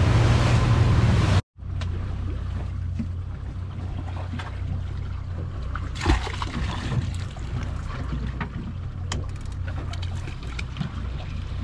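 Outboard-powered boat running at speed for about a second and a half, with wind and wake noise, then after a cut the outboards idling with a steady low hum, with scattered clicks and knocks of gear being handled and one thump about six seconds in.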